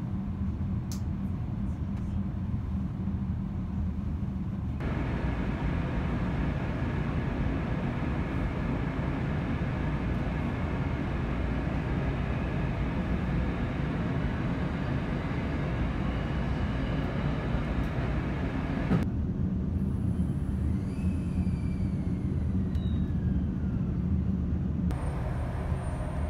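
Interior noise of a JR East E531 series electric commuter train: a steady cabin hum while it stands at a station, then the rumble of the train pulling away and running. Near the end comes a falling electric whine as it slows into the next station.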